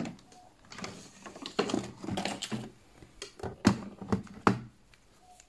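Knocks and clicks of an analog pointer multimeter being set down on a workbench and handled, a scattered series of short hard taps.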